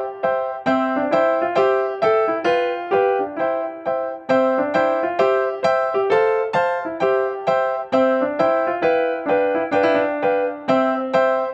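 Background piano music: a steady run of single struck notes, each ringing and fading, about three a second.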